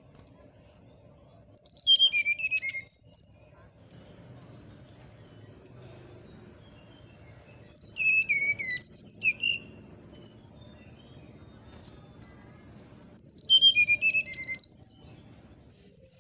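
Brown-chested jungle flycatcher (sikatan rimba dada coklat) singing three short phrases about six seconds apart. Each phrase is a quick run of clear notes stepping down from high to lower pitch and ends with an upward flourish. A brief note follows near the end.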